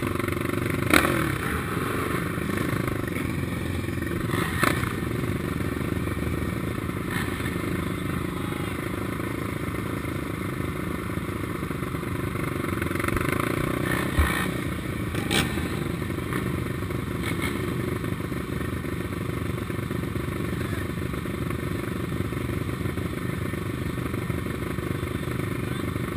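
Suzuki LTR 450 quad's single-cylinder four-stroke engine idling and running at low speed, picked up by a camera mounted on the quad, with other racing quads idling around it. Several short sharp knocks cut through it, about a second in, near five seconds, and twice around fourteen to fifteen seconds.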